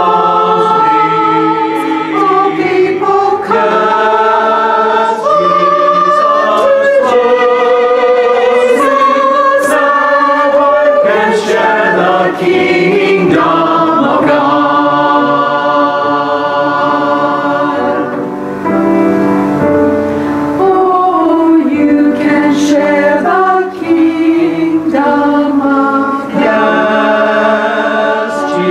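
Church choir of mixed men's and women's voices singing a sacred anthem.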